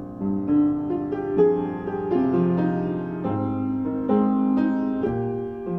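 Background piano music: a slow piano cover, held notes and chords changing every half second or so.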